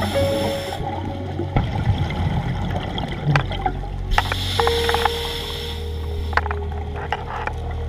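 Background music with sustained tones over underwater noise, with two hissing rushes: a short one at the start and a longer one about four seconds in.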